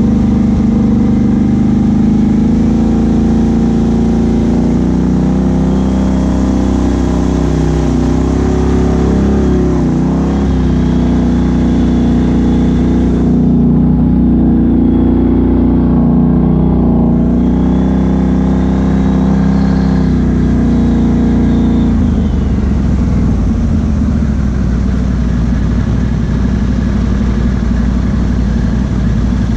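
Can-Am Outlander XMR 1000 ATV's V-twin engine with an aftermarket Big Gun exhaust, running at trail speed with the pitch rising and falling as the throttle changes. About three-quarters of the way through it drops to a lower, rougher note as the rider eases off.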